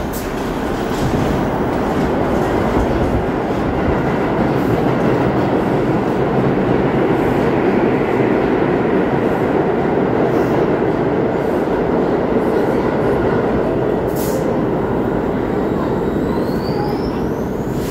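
Subway train noise in an underground station: a loud, steady rumble and rattle of train on rails that swells over the first couple of seconds, with a single sharp clank about fourteen seconds in.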